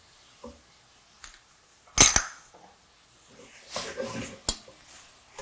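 Metal tongs clanking and scraping in a stainless steel sauté pan as shredded carrots are tossed: one sharp clank about two seconds in, softer scraping around four seconds, and a short click soon after.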